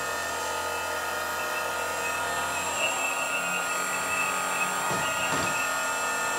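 Steady whine of the electric-motor-driven hydraulic pumps of 1/12-scale RC hydraulic excavators running under load as their booms and buckets are worked, with a couple of faint knocks about five seconds in.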